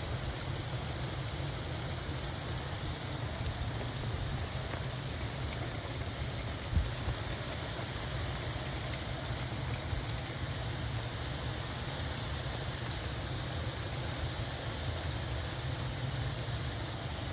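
Steady rain falling: a dense, even hiss with a low rumble beneath it, and one louder drop hitting about seven seconds in.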